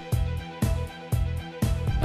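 Instrumental background music with a steady beat, about two notes a second.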